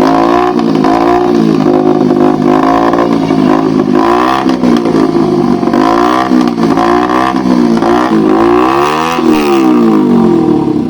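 Several motorcycle engines revving loudly at once, their pitches repeatedly rising and falling and crossing one another as the throttles are worked.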